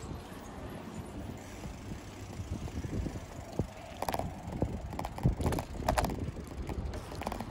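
Bicycle being ridden along a street: a steady rumble of tyres and frame with some wind on the microphone, joined about four seconds in by a run of sharp rattling clicks.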